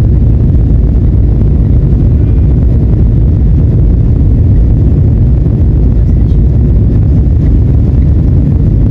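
Loud, steady rumble of a jet airliner's engines and airflow, heard inside the passenger cabin.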